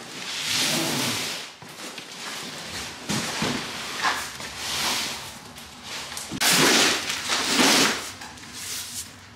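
Large cardboard boxes scraping and sliding across a truck's cargo floor and being handled, with a few knocks. The loudest scraping comes about two-thirds of the way through.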